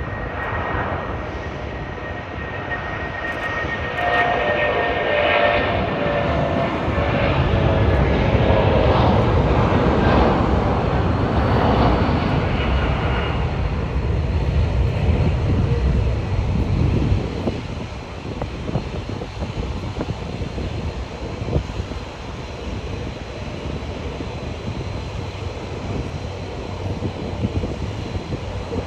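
Airbus A330-300 with Pratt & Whitney PW4000 engines at high power on departure. The jet roar swells about four seconds in, peaks for several seconds with a whining tone, then fades over the last ten seconds as the aircraft moves away.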